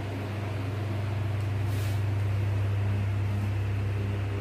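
Steady low hum of room equipment, with a marker scratching briefly on a whiteboard about two seconds in.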